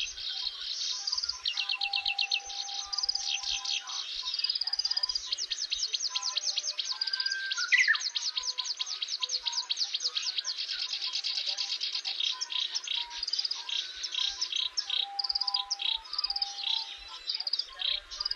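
Several songbirds singing at once, a dense, unbroken run of rapid high trills and chirps.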